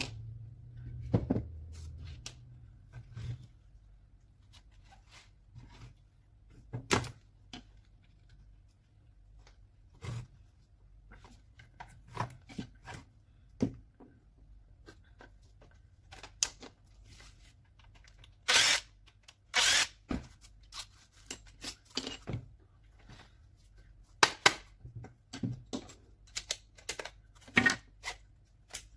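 Parts of a Makita 9237C polisher being handled during disassembly: scattered clicks, knocks and clatter of metal and plastic pieces taken apart and set down on a hard floor, with two longer rattling bursts about two-thirds of the way through.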